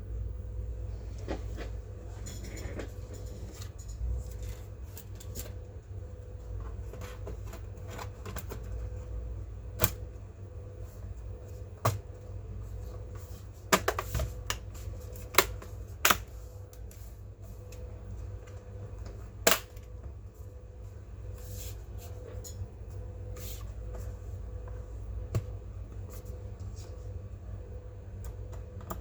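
Scattered sharp clicks and light knocks from a laptop and its parts being handled during a RAM upgrade, several close together about halfway through, over a steady low hum.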